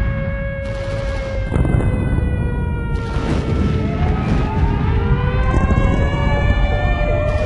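Air-raid sirens wailing, several overlapping tones slowly sliding down and up in pitch, over a dense low rumble. It all cuts off suddenly at the very end.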